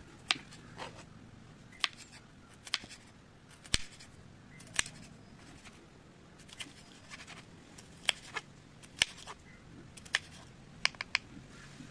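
Kitchen knife slicing star fruit on a plastic cutting board. The blade strikes the board in sharp, irregular clicks about once a second, some in quick pairs.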